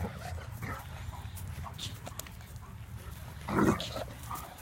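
Dogs at play: short, scattered dog vocalizations, with one louder bark about three and a half seconds in.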